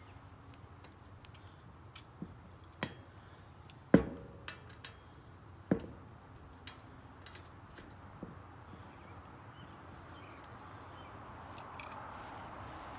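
Scattered metallic clinks and knocks of lug nuts and a socket being handled and fitted onto wheel-spacer studs at the hub, the loudest knock about four seconds in and another strong one near six seconds.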